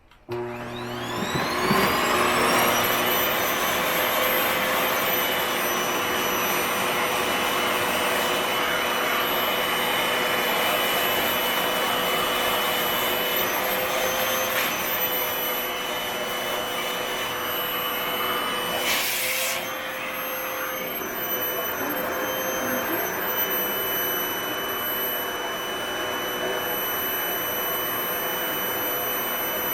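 Vacuum cleaner switched on, its motor whine rising as it spins up, then running steadily while vacuuming the dust filter of an air purifier. There is a brief hiss about nineteen seconds in.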